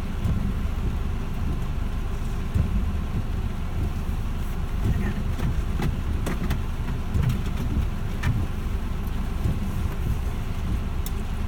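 Car engine idling, heard from inside the cabin, with scattered irregular taps of rain on the car.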